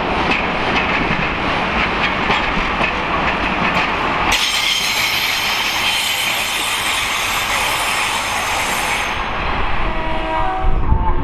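A two-car diesel multiple unit passes close by on curved track, its wheels clicking over the rail joints. About four seconds in the sound turns to a high, hissing squeal of wheels on the curved rails, which fades away near the end.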